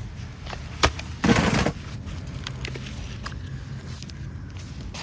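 A person crawling into a tight crawl space: a sharp knock a little under a second in, then a short scuffing rustle about a second and a half in, with faint scrapes and ticks over a steady low rumble.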